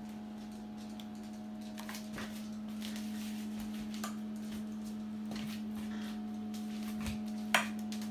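A spoon scraping and tapping in a glass baking dish as meat sauce is spread over lasagna sheets, with one sharp knock about seven and a half seconds in, over a steady low hum.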